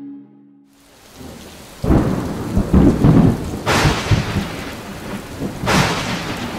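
Thunderstorm sound: hissing rain with a deep rumble of thunder that sets in about two seconds in, and two loud thunder crashes about two seconds apart.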